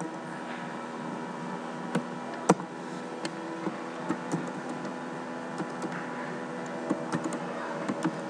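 Computer keyboard keystrokes: a few sharp key presses in the first few seconds, then a quick run of typing near the end, over a steady background hum.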